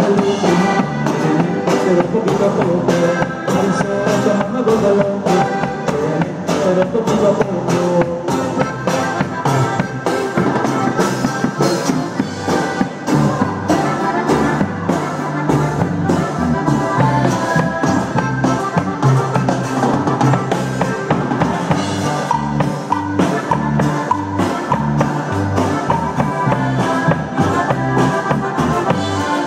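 Band playing a cumbia, with a drum kit keeping a steady, even beat under bass and a melodic lead.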